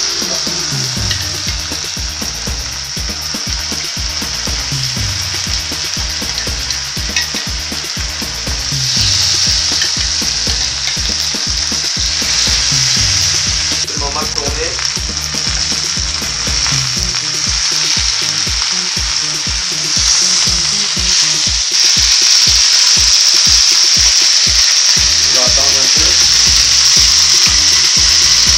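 Marinated chicken pieces sizzling in a hot ridged grill pan. The sizzle starts suddenly as the first piece goes in, then gets louder about a third of the way in and again near the end as the pan fills.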